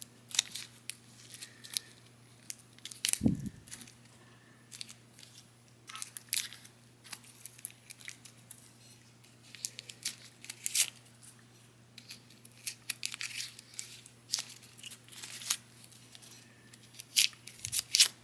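Plastic protective covers being peeled and pulled off an action figure: irregular crinkling and crackling with small clicks, and one louder knock about three seconds in.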